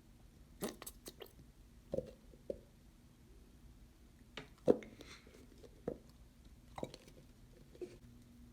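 Scattered soft taps, clicks and squishes, about ten in all, as glue, glitter and salt containers are handled and their contents added to a bowl for slime.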